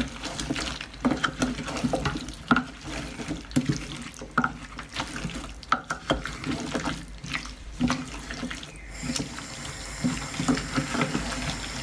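Wooden spoon stirring wet chunks of potato and courgette in an aluminium pot, with irregular scrapes and knocks against the pot and a watery, sloshing sound from the cooking liquid.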